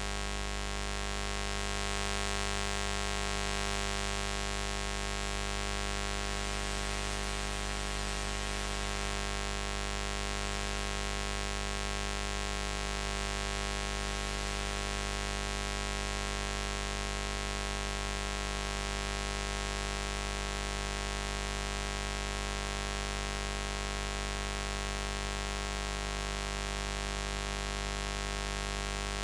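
Steady low-pitched buzz with many overtones and a layer of hiss, unchanging in pitch and level.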